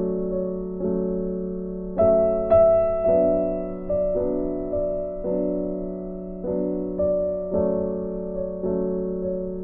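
Background music: slow, soft piano chords, each struck and left to fade before the next, about one a second.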